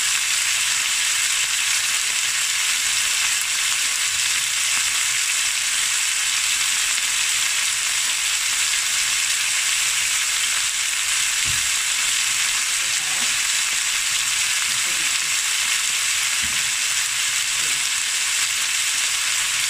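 Diced chicken breast frying in olive oil with chopped garlic and chili in a stainless-steel pan: a steady, even sizzle.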